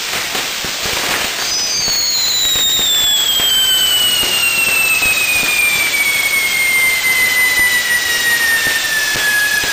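Spinning ground-firework wheel (nar tal-art) spraying sparks: a loud, steady hiss with crackles. About a second and a half in, a whistle starts and slides slowly downward in pitch, with fainter whistles above it.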